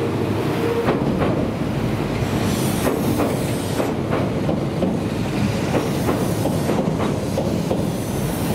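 Tobu 6050 series electric train passing close by, a steady rumble with its wheels clacking over rail joints at irregular intervals.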